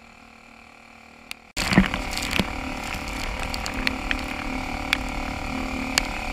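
A faint steady hum, then, about a second and a half in, a kayak pushing fast through choppy water: water rushing and splashing at the hull, with scattered knocks and clicks from the boat's gear over a steady hum.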